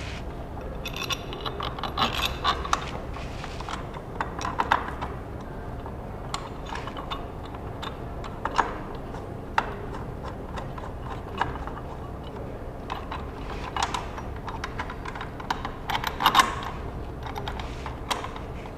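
Small metal parts clicking and clinking as connecting plates are fitted and screwed onto the edges of LED display panel cabinets: irregular clicks and short rattles, with the busiest clusters about 2 s in, around 4.5 s, and loudest near the end at about 16 s.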